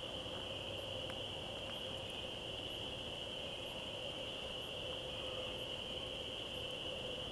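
Faint night-time chorus in woodland: a steady, unbroken high-pitched trill, with a weaker steady low hum beneath it.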